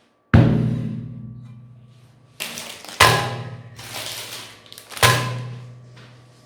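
Intro music of three heavy booming hits, each ringing out and fading over about two seconds.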